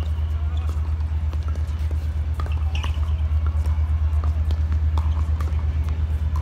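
A steady low hum, with scattered faint taps of footsteps and a tennis ball being handled on a hard court.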